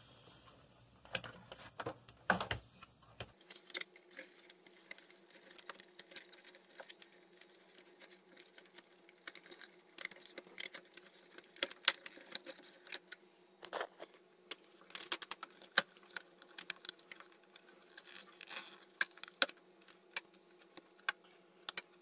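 Scattered light clicks, taps and knocks of hands handling a plastic refrigerator control-board housing and pushing it up into its mount under the fridge.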